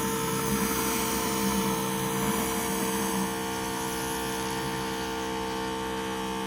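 Pressure washer running steadily, its motor and pump holding a constant hum under the hiss of the spray, easing off slightly about three seconds in.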